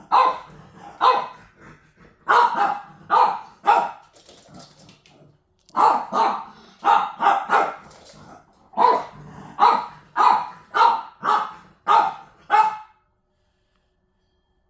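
A pet dog barking repeatedly at an electric fan, in runs of several barks about two a second with short pauses between; the barking stops abruptly near the end.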